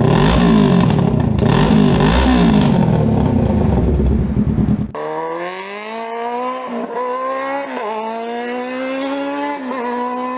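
Kawasaki Ninja 650 parallel-twin with an aftermarket full exhaust, first revved hard twice. About five seconds in there is a sudden cut to the bike accelerating through the gears: the engine note climbs and drops at each of about three upshifts.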